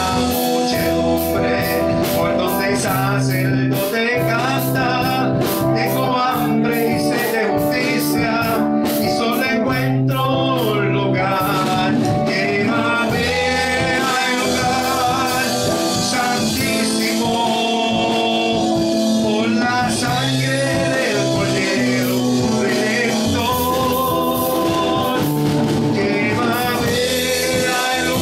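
Live Spanish-language worship song: a man singing into a microphone over a band, with steady bass notes, sustained chords and drums with regular cymbal strokes.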